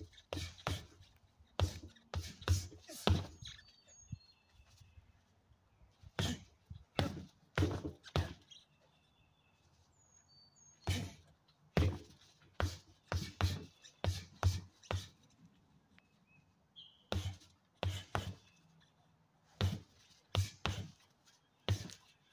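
Padded 16 oz boxing gloves thudding into a stack of rubber tyres, in quick combinations of two to five punches with short pauses between them. A few bird chirps sound in the gaps.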